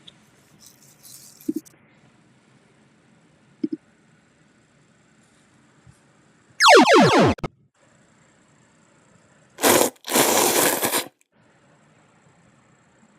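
Added cartoon-style sound effects: a quick downward-sliding tone with several overtones, like a falling boing, then about a second and a half of loud noisy hiss or crash a couple of seconds later.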